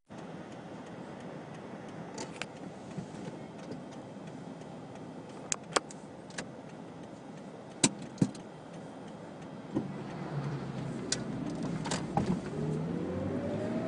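Car cabin noise while driving: steady engine and road noise with a few sharp clicks and knocks. Near the end the engine note rises as the car speeds up.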